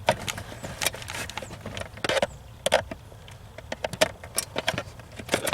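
Irregular small clicks and rattles of hands working at the plastic wiring plugs of a Becker alarm control unit, loosening them to unplug them.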